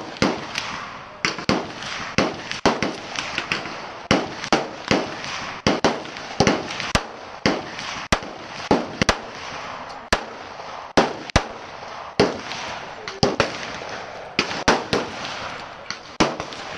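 A long string of gunshots at a shooting range, roughly two shots a second, unevenly spaced.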